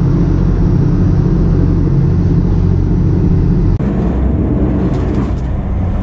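Fishing boat's engine running under way, a steady low drone. About four seconds in the sound cuts to a rougher low rumble with a few faint clicks.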